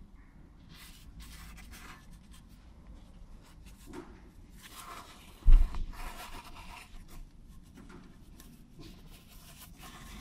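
Intermittent scraping and rubbing as a gloved hand moves about inside a BMW E90's gearbox bell housing, with one heavy thump about five and a half seconds in.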